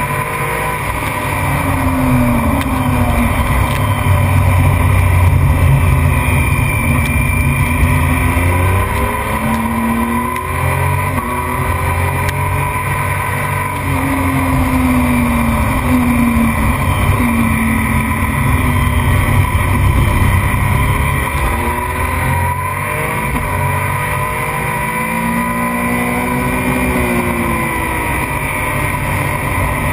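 Onboard sound of a racing motorcycle at speed on a circuit: the engine climbs in pitch again and again, each climb lasting about a second, as it accelerates and shifts through the gears. Heavy wind rush over the camera runs under it.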